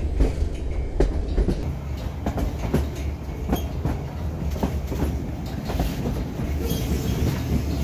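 White Pass and Yukon Route passenger train rolling along the track, heard from on board: a steady low rumble with frequent clicks and clacks from the wheels.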